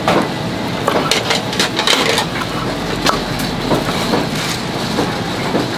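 Kitchen knife slicing boiled offal on a wooden cutting board: a quick, uneven run of sharp knocks, about two to three a second, as the blade comes down through the meat onto the board.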